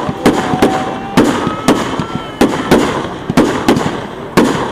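Fireworks display: a rapid string of aerial shells bursting, about a dozen loud bangs in under five seconds, each trailing off, with faint whistling tones between them.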